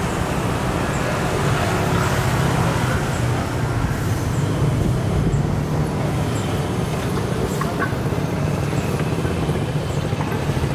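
Steady street traffic noise of motor scooters and motorcycles passing, a continuous engine hum with road noise.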